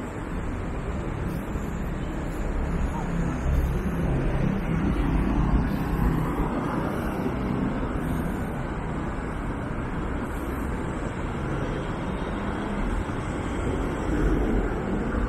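City street ambience: a steady rumble of road traffic from passing vehicles, heaviest in the low end, swelling and easing slightly as vehicles go by.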